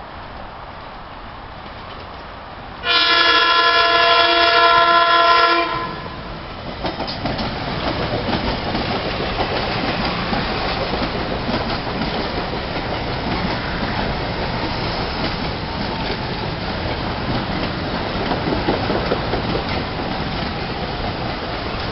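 A Metro-North New Haven line electric passenger train sounds one loud horn blast of about three seconds, several notes at once. It then runs past with a steady, loud noise of wheels on rails.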